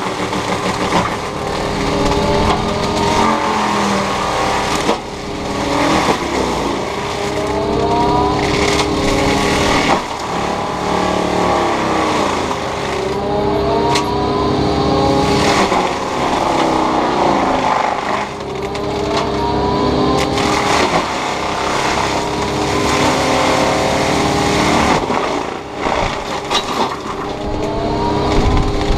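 Takeuchi TB290 excavator's diesel engine and FAE mulching head running hard, a steady hum with a whine that repeatedly sags and climbs back every few seconds as the drum loads up in the brush and regains speed.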